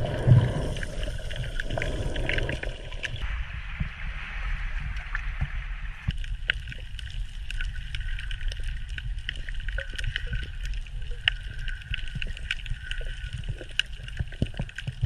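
Underwater sound picked up by a submerged camera: a muffled low rumble and gurgle of water with many scattered sharp clicks and crackles.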